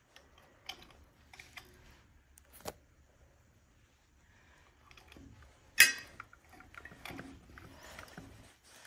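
Scattered light metallic clicks and taps of tools and parts being handled on a circulator pump's coupler and bracket, with a sharper click a little under three seconds in and the loudest near six seconds.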